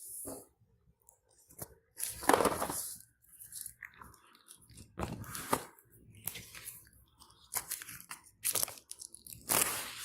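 Cardboard packaging being pulled open and handled: irregular crunching and scraping of cardboard in several bursts, the loudest about two seconds in and near the end.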